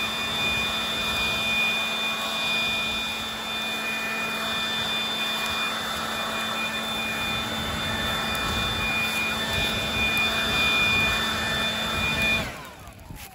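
Handheld leaf blower running steadily at full blast, a rush of air with a steady whine, blowing burning grass and leaves back into the burned ground to put out the fire's edge. It shuts off near the end and winds down.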